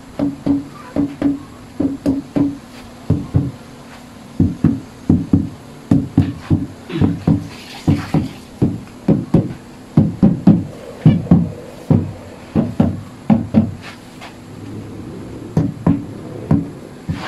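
Rubber mallet tapping the rim of a stainless steel drop-in kitchen sink over and over to seat it down into its countertop cutout: dull knocks, about two to three a second, with a short pause near the end.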